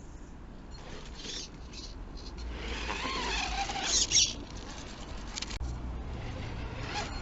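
RC car driving through mud, with a short whine that falls in pitch about three seconds in and a loud gritty burst just after four seconds.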